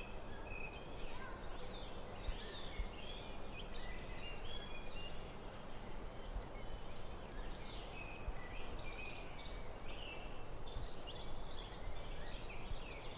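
Forest birdsong: several songbirds chirping and trilling at once in a busy, overlapping chorus, over a steady low background noise.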